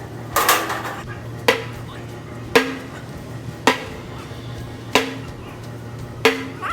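Background music with a slow beat: a sharp percussive hit with a short ringing tone about every 1.2 seconds.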